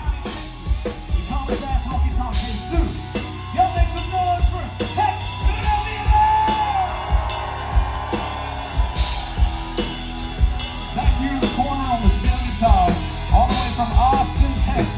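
Live country-rock band playing: drum kit, electric guitars and bass, with a man singing over them.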